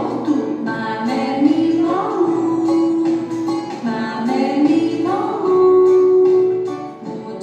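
A children's song: a voice singing a melody with rising phrases and long held notes over plucked guitar accompaniment.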